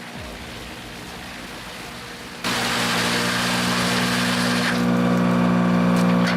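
Engine of a wood-processing machine running steadily with a low drone. About two and a half seconds in, the sound turns abruptly much louder and noisier and stays so.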